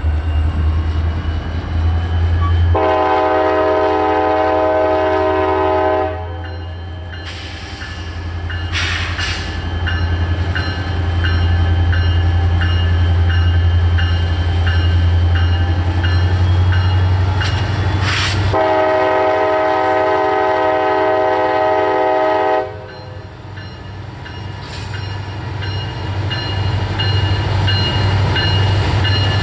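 Diesel locomotive running with a steady low rumble. Its air horn sounds two long chord blasts, a few seconds in and again about two-thirds of the way through. Between the blasts there is a regular high ringing, about one and a half strokes a second.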